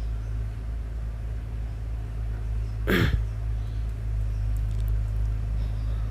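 A steady low hum, with one short swoosh falling from high to low pitch about three seconds in.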